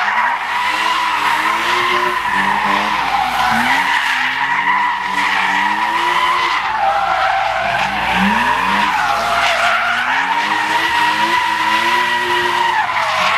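A BMW E34 5 Series doing donuts: its rear tyres squeal steadily in a sustained high tone while the engine revs rise and fall again and again underneath. The squeal dips in pitch near the end.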